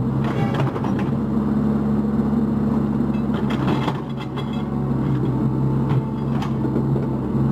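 Cat 304 mini excavator's diesel engine running steadily, with scattered knocks and clanks from the machine at work.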